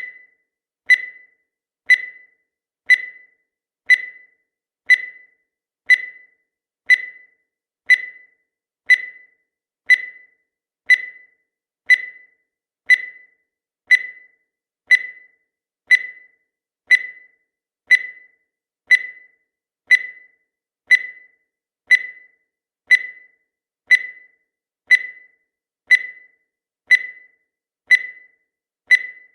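Countdown timer sound effect: a short, high beep once every second, each starting sharply and dying away quickly.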